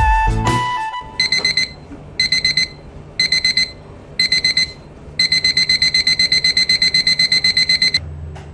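An electronic alarm clock going off as a piece of music ends. It gives four short bursts of rapid high beeps about once a second, then a continuous run of rapid beeps for nearly three seconds that cuts off suddenly.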